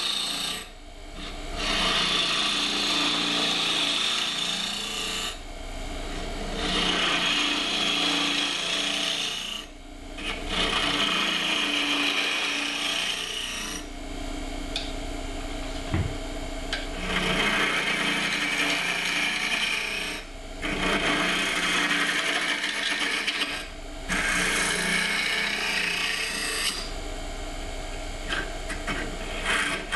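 Wood lathe running with a steady low hum while a turning tool hollows out the inside of a spinning wooden box blank. The cutting noise comes in passes of a few seconds each, with short breaks between them as the tool is drawn back.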